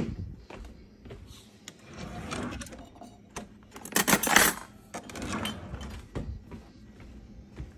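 Kitchen handling noises while making a sandwich: scattered clicks and knocks, with noisy rustling bursts around two, four and five seconds in, the loudest about four seconds in.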